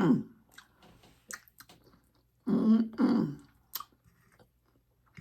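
A person eating: soft chewing clicks, broken by short voiced throat sounds at the start and again about two and a half seconds in.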